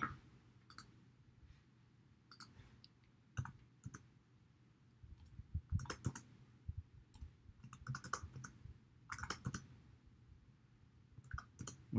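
Computer keyboard keystrokes and mouse clicks: a few scattered clicks at first, then quick clusters of keystrokes from about five seconds in.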